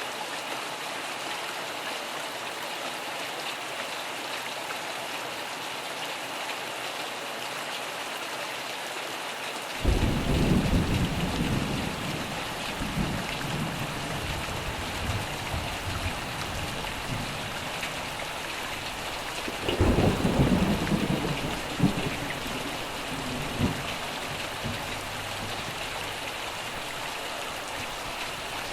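Steady rain hiss with thunder: a sudden rumble of thunder breaks in about a third of the way through and rolls away over several seconds, and a second rumble follows about ten seconds later.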